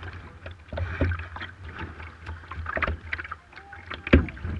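Double sea kayak being paddled: irregular paddle splashes and water slapping against the hull, picked up through the bow, with a sharp knock about four seconds in.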